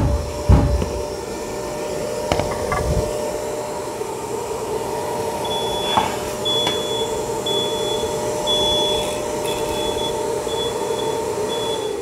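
A 9-inch Bosch angle grinder runs a shallow cut through a stone slab inside a dust-extraction cover, with a Bosch GAS 35 M AFC extractor running on the cover, and a few thumps come near the start. From about halfway on, short high beeps sound about once a second: the extractor's airflow warning. The motors cut off at the end.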